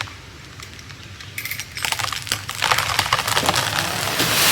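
Eastern hemlock trunk cracking and splintering at the felling hinge as the tree tips over. The crackles start about two seconds in, come thick and fast, and build into a rushing hiss of branches through the air near the end.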